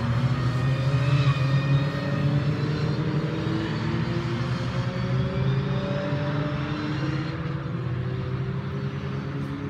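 Beetle-bodied Fun Cup race car accelerating out of a corner and away, its engine note rising steadily in pitch. The engine fades after about seven seconds as the car draws off.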